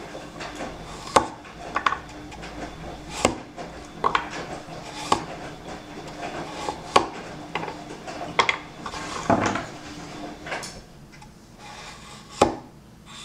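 Sakon Aogami Super stainless-clad gyuto slicing a carrot into rounds, each cut ending in a sharp knock of the blade on a wooden cutting board. There are about a dozen cuts at an uneven pace, roughly one a second.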